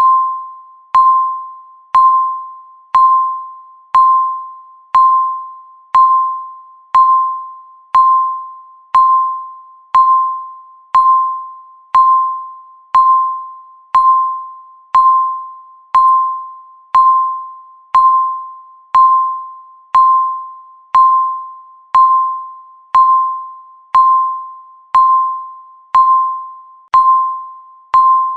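Electronic countdown-timer beep, one short tone per second at a single steady pitch, each starting sharply and fading away before the next.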